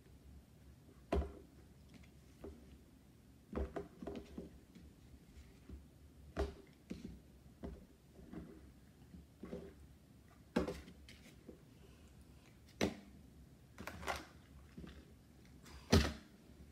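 Irregular clicks and knocks of objects being handled and set down on a tabletop, about seven sharper knocks among smaller taps, the loudest near the end.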